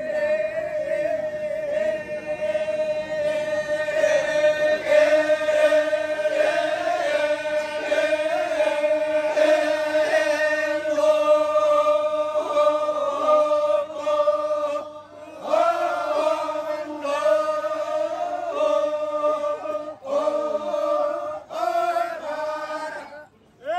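Badong, the Torajan funeral mourning chant, sung by a group of voices in unison over a long held note, with a slow melodic line moving above it. The chant breaks off briefly about fifteen seconds in, and again a couple of times near the end.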